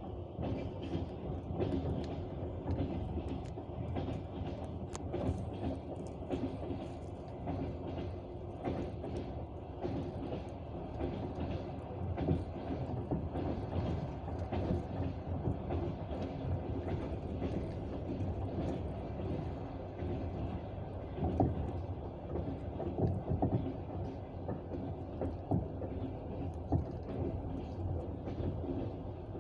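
Passenger train running on the rails, heard from inside the carriage: a steady rumble under the clatter of the wheels over the rail joints.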